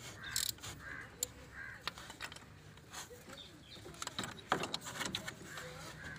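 Scattered metal clicks and knocks of hand tools on the water pump bolts of a Chevrolet Tavera engine as they are loosened. Three crow caws sound in the first two seconds.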